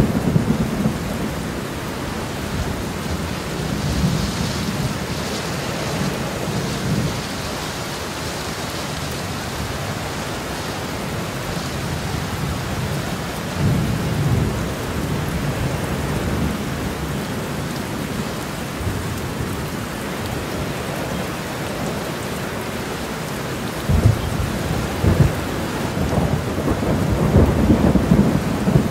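Steady rain falling through a thunderstorm, with thunder rumbling low several times: a few seconds in, about halfway, two sharper claps later on, and a longer rumble near the end.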